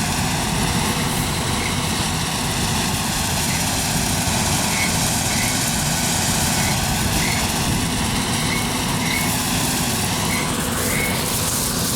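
John Deere 9400 combine running: a steady, loud, low machine drone.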